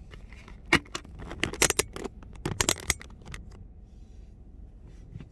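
Handling noise of the recording phone being fumbled: a run of sharp clicks, knocks and rustles that dies away about three and a half seconds in.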